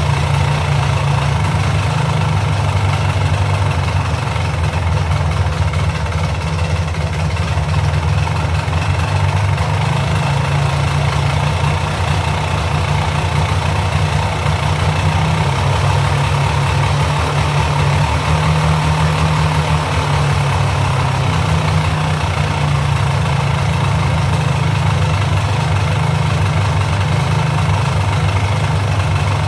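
Polaris Sportsman 400's liquid-cooled two-stroke engine idling steadily at an even speed, with no revving.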